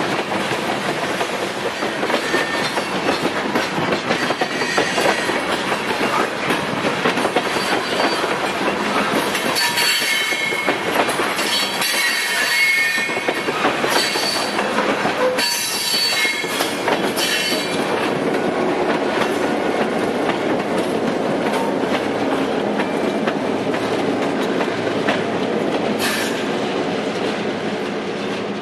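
Covered hopper grain cars rolling past, their wheels clicking over the rail joints, with high wheel squeal coming and going, strongest from about ten to seventeen seconds in.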